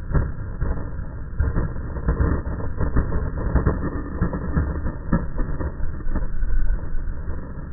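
Skateboard wheels rolling over paving stones: a steady low rumble broken by irregular clacks.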